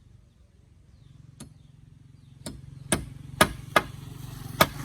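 Hammer blows on a building site: six sharp, irregular knocks that grow louder in the second half, over a low steady hum.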